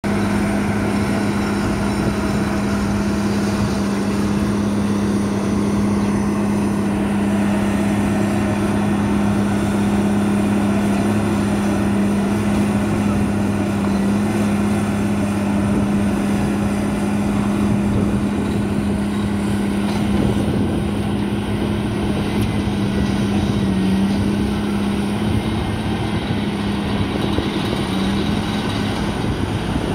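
Diesel engine of heavy piling machinery running at a steady speed, a constant hum with a few slight dips in pitch near the end.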